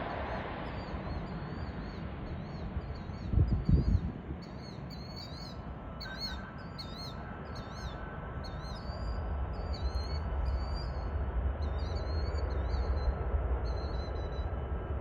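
A small bird chirping over and over in short, high, wavy notes, over the fading sound of a distant jet airliner. About three and a half seconds in there is a brief, loud low thump of wind on the microphone, and a low rumble builds toward the end.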